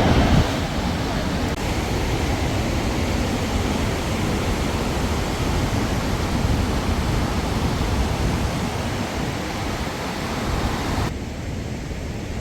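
A steady, even rushing noise with a fluttering low rumble underneath. About eleven seconds in it cuts abruptly to a quieter, duller version of the same rushing.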